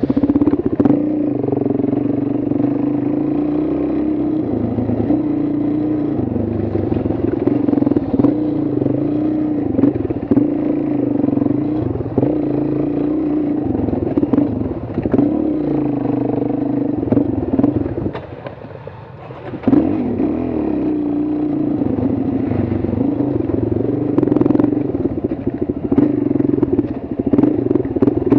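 Dual-sport motorcycle engine running under throttle as it is ridden along a bumpy dirt trail, its pitch rising and falling with the throttle, with knocks and rattles from the bike over the ground. About two-thirds of the way through the engine note drops away for a second or two as the throttle is closed, then picks up again.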